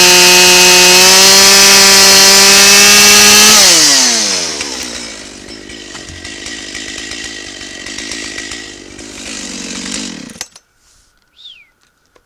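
Gas chainsaw running at full throttle, then released about three and a half seconds in: the pitch falls quickly to a rough idle, which runs until the engine cuts off abruptly near the end.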